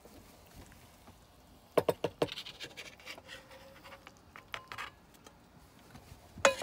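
A small nonstick frying pan knocking a few times against a plate, with a short scraping slide as the fried eggs come out of the pan onto the plate, then a few light ticks and one more sharp clatter near the end.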